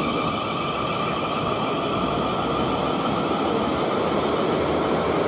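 South Western Railway Class 450 Desiro electric multiple unit departing, a steady running noise of wheels on track with a steady high whine.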